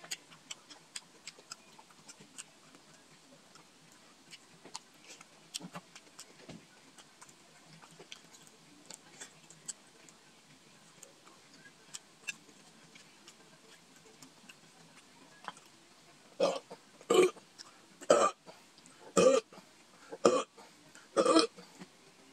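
Faint mouth and eating clicks, then a man burping loudly about six times in quick succession near the end, roughly one burp a second.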